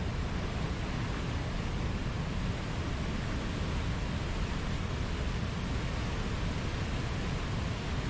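Whitewater river and waterfall rushing: a steady, even noise of fast-flowing water, deepest at the low end, with no change.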